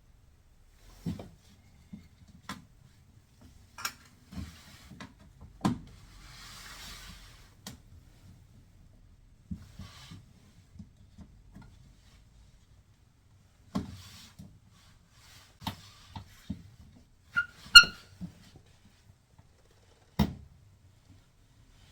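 Hands fitting a rubber door boot gasket onto a front-load washer: scattered knocks, taps and rubbing, a soft hiss about six seconds in, and a brief squeak near eighteen seconds, the loudest sound.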